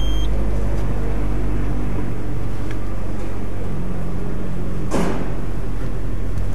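Turbocharged car engine idling steadily, heard from inside the cabin as a low, even drone. A brief sharp whoosh cuts through about five seconds in.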